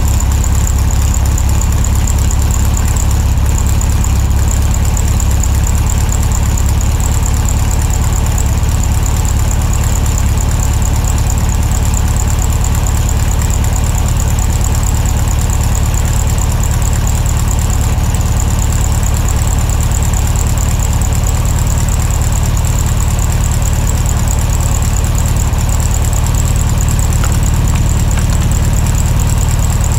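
A vehicle engine running steadily, a constant low rumble with a thin high whine above it that does not change throughout.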